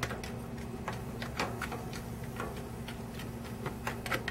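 Irregular crackling and ticking from a small charcoal fire loaded with juice-soaked apple wood chips, which are starting to smolder. The sharp pops come several a second at uneven spacing.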